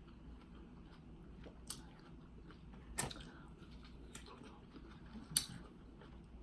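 Quiet chewing of cantaloupe, with three sharp wet mouth clicks.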